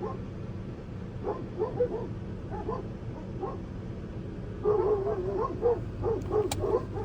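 A dog whining and yipping in short, repeated high cries that come faster from about five seconds in, over a steady low hum.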